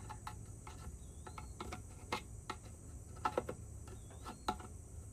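Scattered light clicks and taps of a screwdriver and small carburetor parts being handled, irregular and unrhythmic, over a steady low hum. Two faint short chirps sound about a second in and again about four seconds in.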